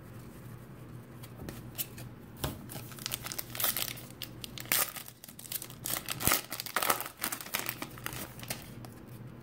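Wrapper of a trading card pack crinkling and tearing as it is opened by hand, in irregular clusters of crackles.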